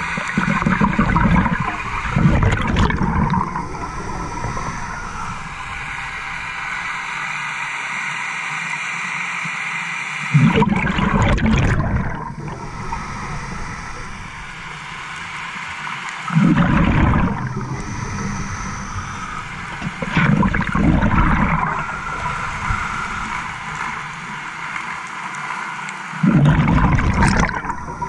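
Scuba diver breathing through a regulator underwater: a loud bubbling rumble of exhaled air every several seconds, with a quieter hiss between the exhalations.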